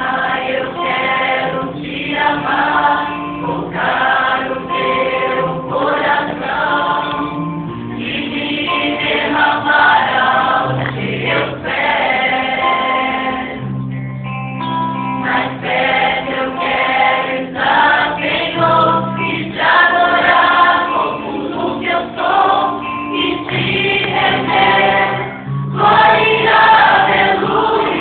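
A choir singing a Christian gospel song in sustained phrases, with several voices together over held low notes.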